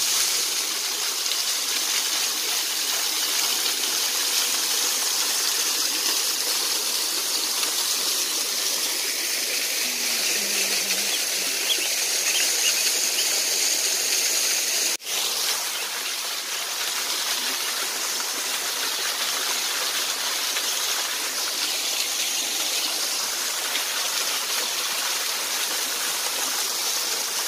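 Small waterfall splashing down a rock face: a steady rush of falling water, briefly cut off about halfway through.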